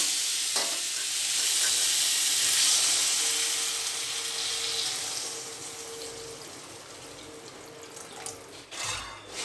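Water poured in a steady stream from a jug into a karai of fried vegetables and spice paste, splashing into the masala. The pour is loudest over the first few seconds and tails off about six seconds in.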